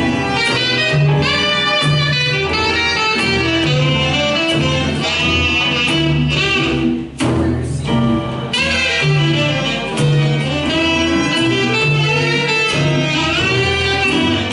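Big band playing a slow jazz arrangement: saxophones carry the melody over a bass note repeating about once a second, with horns and rhythm section. The band briefly drops away about halfway through, then comes back in.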